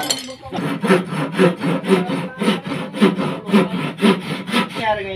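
Hand saw cutting a wooden board with steady back-and-forth strokes, about two a second, stopping shortly before the end.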